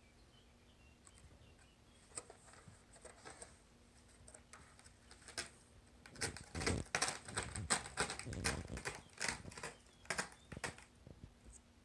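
Cat clawing at a scratching board: quick rasping scratch strokes, a few at first, then a dense, louder run with some dull thumps, stopping about a second before the end.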